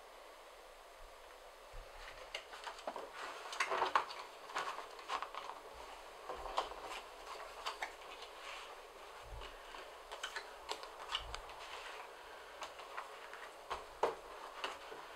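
Handling sounds: light clicks, taps and rustles as cards are slid into the slots of a leather passport case and a passport is set into it on a wooden table. The sounds begin about two seconds in and come irregularly, the loudest around four seconds in and again near the end.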